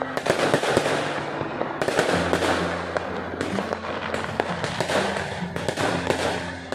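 Fireworks going off: a dense run of irregular bangs and crackles, one after another throughout.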